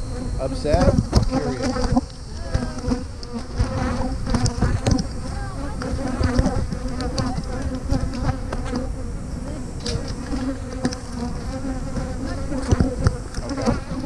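Honeybees buzzing in flight close around the microphone, a steady hum with single bees passing near now and then. The bees are stirred up after the hive was opened for the honey harvest and are following the beekeeper.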